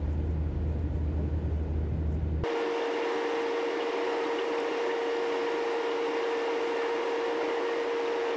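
Steady road and engine noise inside a moving car's cabin. About two and a half seconds in, the deep rumble cuts off abruptly and a steady hum with a single mid-pitched tone carries on.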